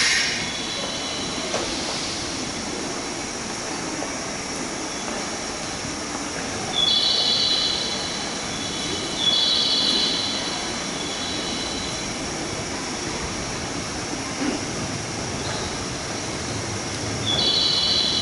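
JR West 201 series electric train standing at a station platform, its on-board equipment giving a steady hum. A high, several-note electronic tone sounds three times, each about two seconds long, about 7, 9 and 17 seconds in.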